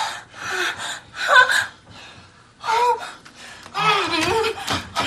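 A person's voice close to the microphone: breathy gasps and short vocal bursts, some pitched high, with snatches of laughter.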